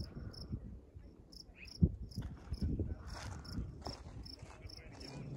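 Insect chirping in short, high-pitched pulses, about two to three a second, over a low rumble of wind and handling. A single sharp thump just under two seconds in.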